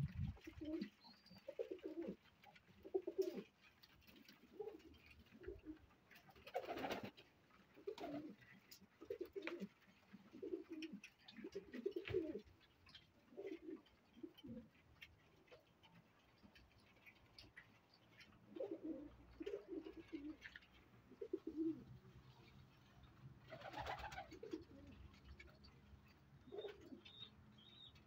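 Pakistani flying pigeons cooing over and over, in short low phrases, with a few brief rustles.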